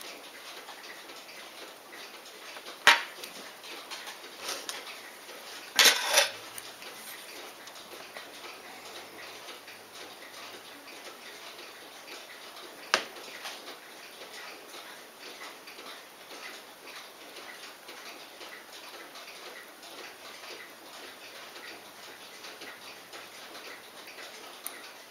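Steady fast ticking, with a few sharp metal clicks as steel tweezers work on a Poljot Signal watch movement: one about three seconds in, a short cluster around six seconds and one more near thirteen seconds.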